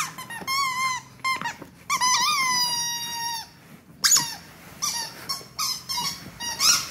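Squeaky dog toy being chewed and squeezed by a dog: a string of short squeaks and one long drawn-out squeak about two seconds in.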